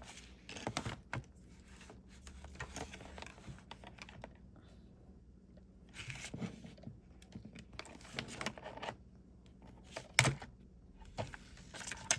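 Handling noise from a hand working over a paper instruction sheet and a small plastic wireless lavalier transmitter: irregular light clicks and paper rustling, with one sharper click about ten seconds in.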